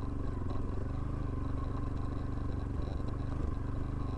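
Bajaj Pulsar NS160's single-cylinder engine running at a steady speed through an exhaust modified for a louder sound, heard while the bike is ridden.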